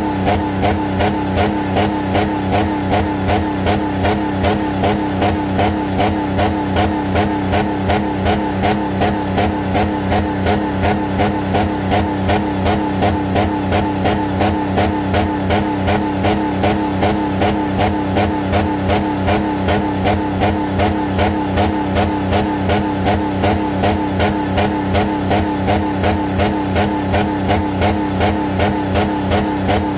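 Jeep Commander engine running with water in its oil pan, its sound pulsing evenly about two to three times a second.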